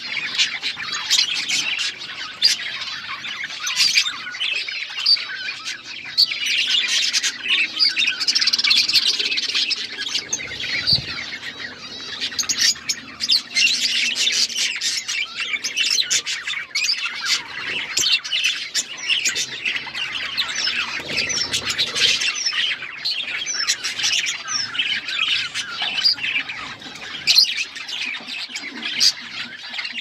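A flock of budgerigars chattering continuously: a dense, overlapping stream of short, high chirps and warbles from many birds at once.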